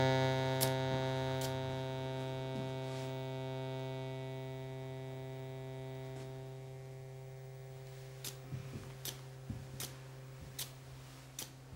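A low held musical drone chord that slowly fades away over several seconds, with a pendulum clock ticking evenly, a tick a little under once a second, heard on its own once the drone has died down.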